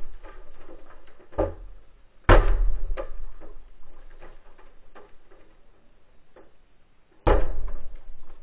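Already-cracked laminated windshield of a 2003 Subaru Forester struck from outside, heard from inside the car: a lighter knock about a second in, then two hard crunching blows, about two seconds in and again near the end, each followed by a trail of faint crackling glass.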